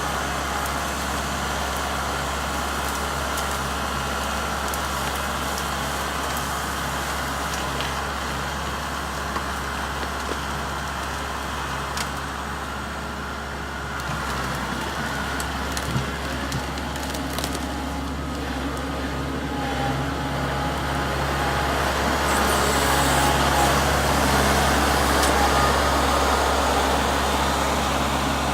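Kubota MX5800 tractor's diesel engine running steadily under working load, getting louder about two-thirds of the way through, with a couple of short knocks.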